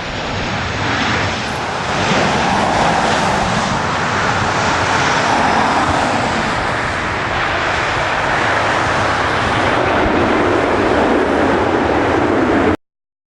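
Boeing 737-800 on final approach, the jet noise of its two CFM56 turbofan engines loud and steady as it passes close by, swelling about two seconds in. The sound cuts off abruptly near the end.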